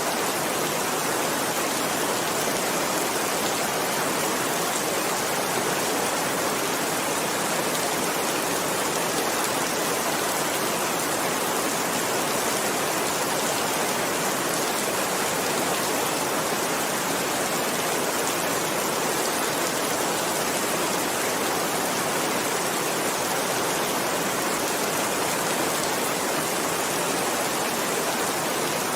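Steady rain falling, an even, unbroken hiss that neither rises nor falls.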